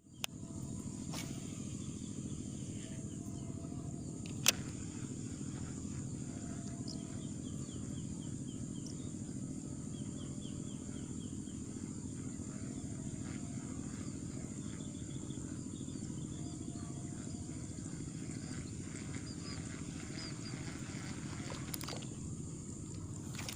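Outdoor ambience of steadily chirping insects and short repeated calls of birds or other small animals over a constant low hum. One sharp click comes about four and a half seconds in.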